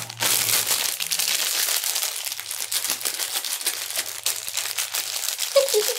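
Orange peel being torn and pulled off by hand close to the microphone: a dense, continuous crackling and crinkling.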